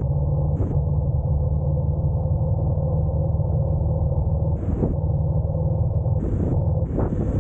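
Steady low rumble of a Honda NC750X motorcycle under way, picked up by its mounted camera, with short bursts of hissing wind noise about four times, the last near the end.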